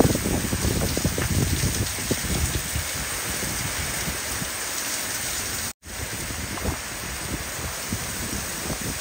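Heavy rain pouring down in a steady hiss, with gusts of wind rumbling on the microphone that are strongest in the first couple of seconds. The sound cuts out for an instant about two-thirds of the way through.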